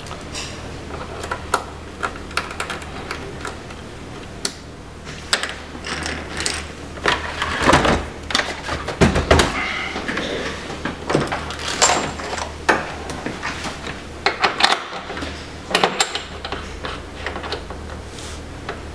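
Hands working on a ventilator's casing and tube fittings: irregular plastic clicks, knocks and rattles, busiest in the middle, over a steady low hum.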